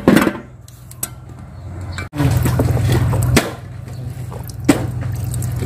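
A machine hum, an engine or motor running steadily, that comes in sharply about two seconds in and drops back somewhat a second later, with a single click near the end.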